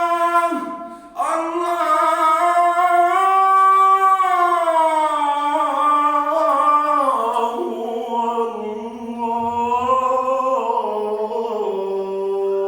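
A single voice singing an Arabic devotional chant (nasheed), drawing out long notes that slide up and down in pitch, with a brief dip about a second in.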